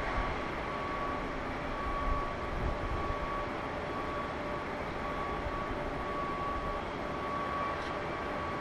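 Steady distant outdoor hum of machinery and traffic, with a faint steady high whine and a few low rumbles about two to three seconds in.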